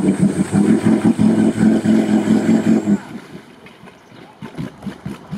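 SUV engine revving hard under load as it strains to pull through deep mud, then dropping back suddenly about three seconds in. Quieter splashing and clicking follow.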